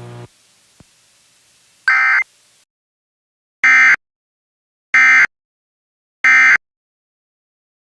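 Emergency Alert System SAME digital data bursts: short electronic buzzes, one about two seconds in and then three more evenly spaced about a second and a half apart, the end-of-message code that closes a broadcast weather alert.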